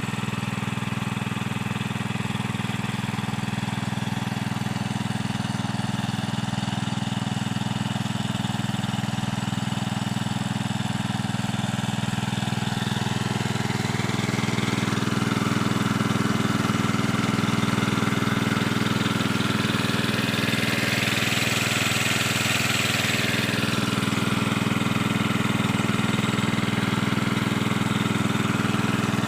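Small water pump engine running steadily on LPG fed from a gas cylinder, getting a little louder about halfway through.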